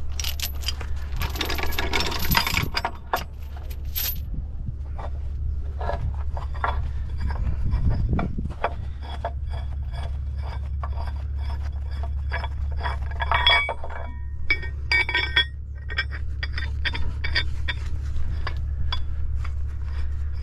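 Steel tow chains and shackles being handled, with repeated metallic clinks and clanks and a denser chain rattle in the first couple of seconds, over a steady low drone.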